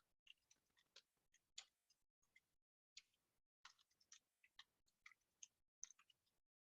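Faint typing on a computer keyboard: short, irregular key clicks, a few each second.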